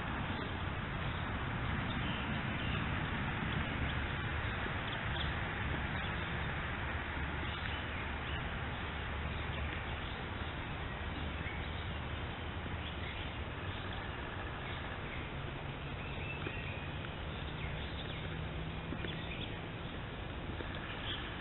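Steady hiss of outdoor woodland ambience through a trail camera's microphone, with a few faint short bird chirps in the second half.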